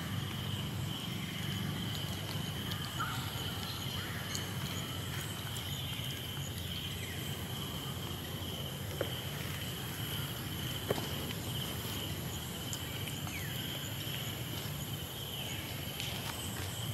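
Outdoor ambience: a steady high-pitched insect drone over a low steady rumble, with a couple of faint sharp ticks in the middle.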